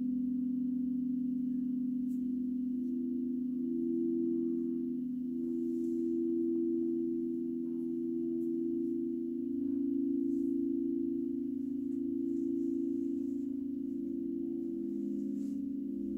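Crystal Tones alchemical quartz singing bowls sounding together: several sustained, overlapping pure tones with a slow beating wobble. About three seconds in a higher bowl swells in, pulsing at first, then holds steady.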